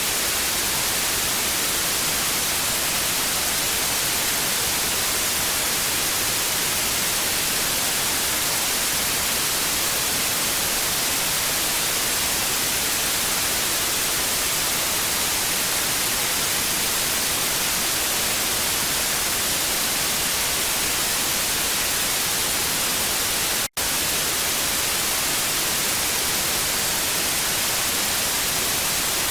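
Steady hiss of analogue TV static, an even white-noise rush weighted toward the highs. It breaks off for a split second about four-fifths of the way through, then goes on.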